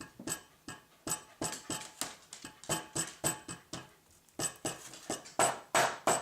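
Rapid series of sharp metallic taps, about three a second, as a dent is tapped out of a MacBook Pro's aluminium lid backed by a metal pot. The taps grow louder near the end.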